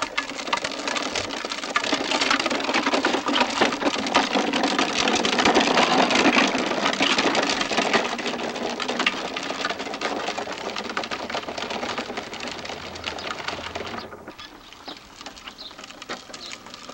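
Hard plastic wheels of a child's big-front-wheel tricycle rolling over a dirt path: a dense, continuous clattering rattle that swells toward the middle and drops away sharply about fourteen seconds in.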